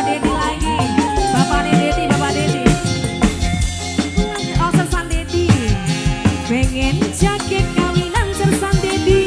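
Live band music: a steady drum beat with rattling percussion under a melody line that slides and bends in pitch.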